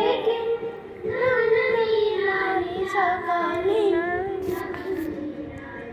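A toddler chanting lines of a Sanskrit verse in a sing-song voice, long drawn-out syllables rising and falling in pitch. A couple of brief clicks sound about four and a half seconds in.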